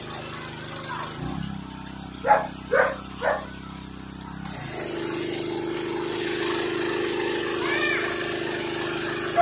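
A pressure washer runs steadily; its tone drops to a lower pitch about a second in and rises back near five seconds. A dog barks three times quickly about two to three seconds in, and gives one more call near the end.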